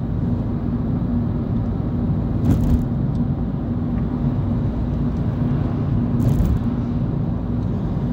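Car engine running steadily in third gear at a constant 50 km/h, with tyre and road rumble heard from inside the cabin. Two brief bursts of hiss come about two and a half and six seconds in.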